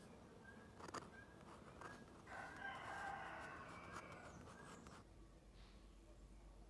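A rooster crows once, one crow of a little under two seconds, heard faintly.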